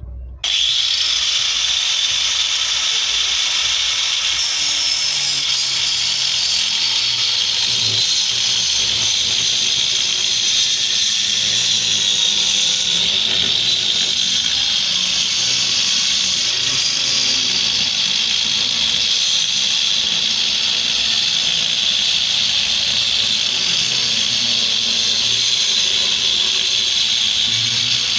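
An electric power tool switched on about half a second in, then running steadily under load on wood with a high, hissing whine.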